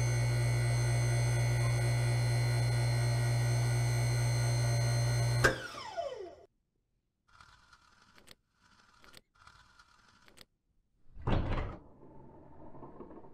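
A steady electronic drone with a strong low hum that cuts off with a click and a falling tone about five and a half seconds in, followed by a few faint short sounds and a loud sliding thunk near the end, the sound of a wall safe sliding open.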